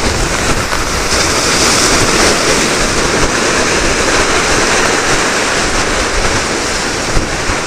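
Sea waves surging and breaking over the concrete tetrapods of a breakwater, a steady rushing wash, with wind buffeting the microphone.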